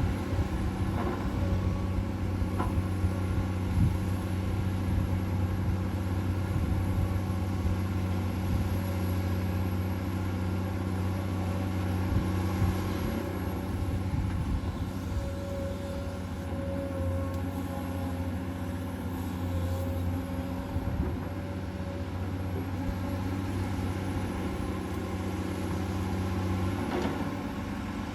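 Komatsu PC200-8 hydraulic excavator's six-cylinder diesel engine running steadily under working load, with a few brief knocks from the digging.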